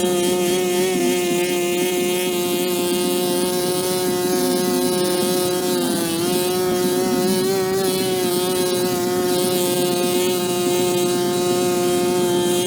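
Pressure washer running steadily with a constant whine over the hiss of its spray; the pitch sags briefly about halfway through, then recovers.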